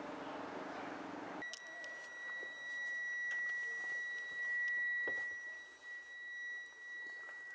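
A low vehicle-like rumble cuts off abruptly about a second and a half in, giving way to a steady, high-pitched electronic beep tone that holds without a break.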